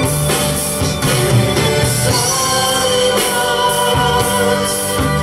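Live worship song: a choir singing with a band of strings, saxophone and drums, over a steady beat.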